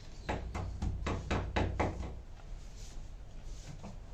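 A quick run of about seven sharp knocks against a wall, about four a second, made while speaker wire is fixed along it, with a couple of fainter taps near the end.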